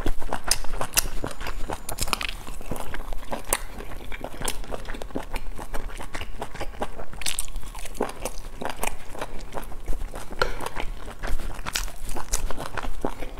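Close-up chewing and mouth sounds of a person eating boiled dumplings: a dense, irregular run of sharp clicks and bites.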